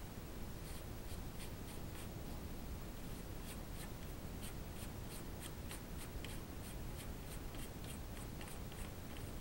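A hand rubbing and handling a metal silencer tube clamped in a stationary lathe chuck: a string of short scratchy ticks, two or three a second and busier after about three seconds, over a steady low hum.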